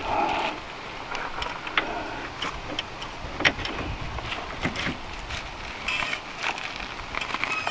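Ratchet wrench clicking in short, irregular strokes, with a few sharper clicks and knocks, as it tightens the lower control arm's bushing bolt with the car's weight back on the wheels.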